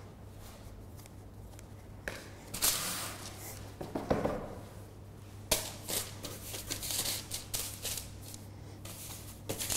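Hand-handling noises of bread dough being worked: a dough scraper cutting through dough and scraping the wooden board, then the dough lifted and laid onto a parchment-lined baking tray, in short scraping and rustling bursts over a low steady hum.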